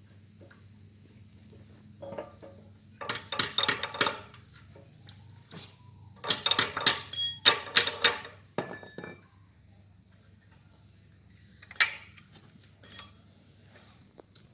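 Metal tools and parts clinking and rattling against each other in two busy runs of quick knocks with short metallic ringing, then a couple of single clinks near the end. A faint steady low hum lies underneath.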